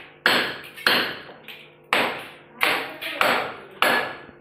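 Hammer blows on a steel false-ceiling channel: about seven sharp strikes, one every half-second or so, each leaving a short metallic ring, with one lighter blow among them.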